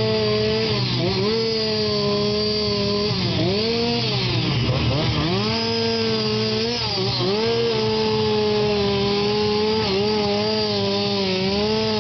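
Two-stroke chainsaw running at full throttle while carving wood, its engine note sagging under load each time the chain bites and climbing back about six times.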